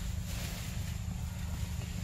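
Wind buffeting the microphone: a steady, unevenly fluttering low rumble, with a faint high steady tone and light hiss above it.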